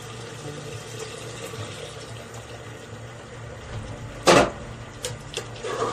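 Meat broth being poured from a saucepan into a hot pressure cooker of fried mutton, a steady watery hiss. About four seconds in comes one loud clank, followed by a few lighter clicks.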